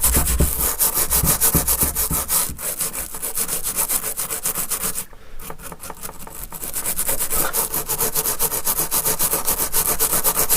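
Toothbrush scrubbing the solder side of an amplifier circuit board with rapid back-and-forth bristle strokes, cleaning the board before resoldering. The scrubbing pauses briefly about halfway through, then resumes.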